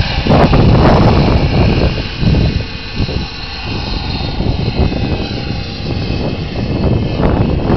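Wren model gas-turbine engine of a radio-controlled helicopter running with a steady high whine over the rush of its rotor blades. It is loudest while the helicopter is low at first, drops as it climbs away, and builds again near the end.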